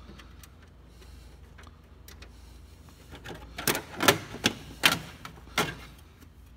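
Plastic side cover of a Ricoh copier being pried off with a screwdriver: after a quiet start, a run of sharp plastic clicks and snaps, about five loud ones, beginning about halfway through as the panel comes loose.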